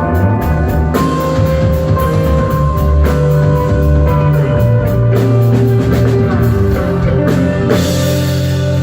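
Rock band playing live: electric guitar over a drum kit.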